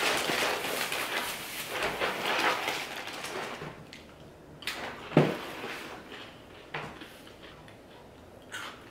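Thin plastic produce bag crinkling and rustling as a banana is pulled out of it. Then a few separate sharp clicks and snaps as the banana is peeled, the loudest about five seconds in.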